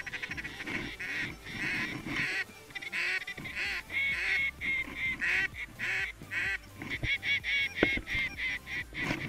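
Geese honking and clucking: many rapid, overlapping short honks, with a brief thump about eight seconds in.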